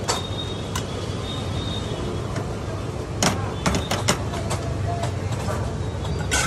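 Metal slotted spatula clicking and scraping against an aluminium frying pan as omelette mixture is spread and pressed flat, with a quick run of sharp clicks about three seconds in, over a steady low rumble.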